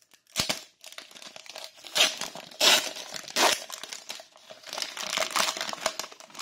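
Foil wrapper of a Pokémon Celebrations booster pack being torn open by hand and crinkled, in a series of crackly bursts, loudest about two to three and a half seconds in.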